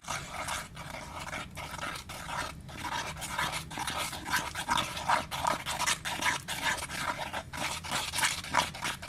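Sticky peel-off face-mask slime mixture being stirred, a continuous run of wet clicking and smacking that pulses a few times a second.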